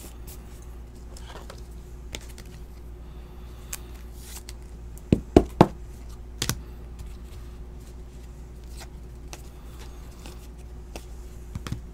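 Trading cards being handled on a table: small taps and rustles, with three sharp clicks in quick succession about five seconds in and another a second later, over a steady low hum.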